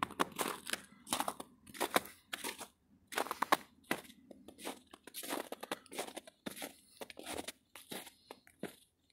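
Footsteps crunching through fresh snow at a steady walking pace.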